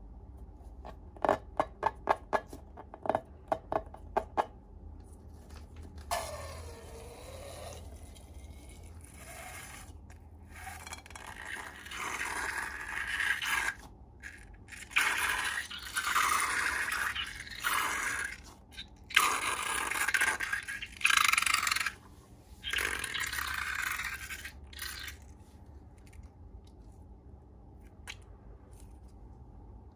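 Slime being worked by hand: a quick run of about a dozen sharp, sticky pops and clicks, then a series of rough scraping strokes, each a second or two long.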